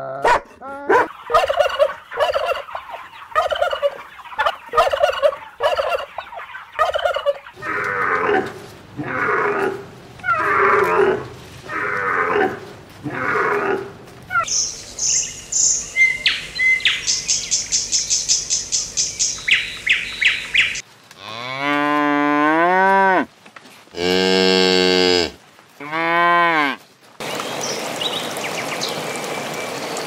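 A run of animal sounds: a dog barking in quick repeated calls, then slower fowl calls and high bird chirps, then three long cow moos, ending in water splashing.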